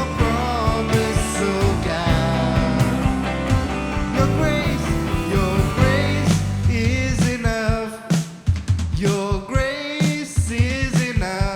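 Band music with a voice singing over bass and drums, a worship song; about eight seconds in the sustained bass drops away and the singing continues over sparser accompaniment.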